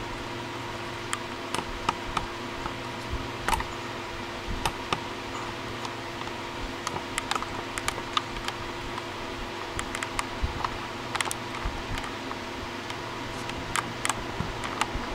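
iBook G3 booting Mac OS 8.6: irregular light clicks, sometimes several a second, over a steady hum. The clicks are typical of the laptop's hard drive seeking while startup extensions load.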